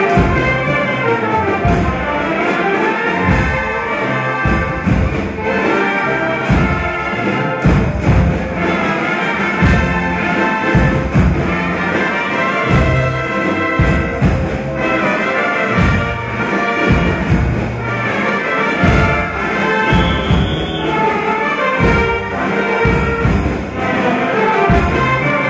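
Brass band music, horns and tubas over a steady bass drum beat.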